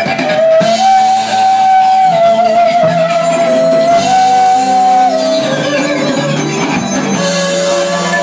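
A live rock band playing, with bass guitar, drums and keyboards; a sustained lead melody moves between a few notes, each held for a second or two.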